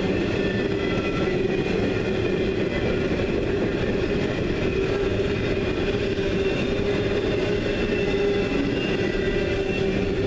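Intermodal freight train cars loaded with trailers and double-stacked containers rolling steadily past, with a steady rumble of steel wheels on rail. Thin high tones from the wheels come and go over it.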